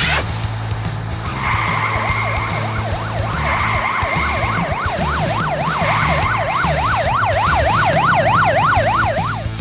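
Police siren: a steady held tone alternating with a fast up-and-down wail that sweeps about twice a second, over background music.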